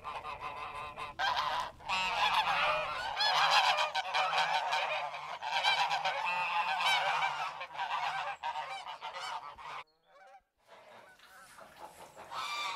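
A flock of geese honking, with many calls overlapping. The honking breaks off briefly about ten seconds in, then fainter honks resume.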